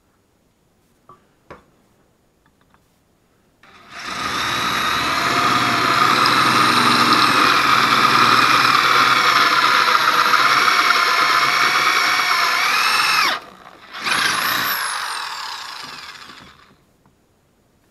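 Corded electric drill boring through a perforated steel plate on a wooden post: the motor runs steadily for about nine seconds and stops suddenly, then runs again briefly and winds down.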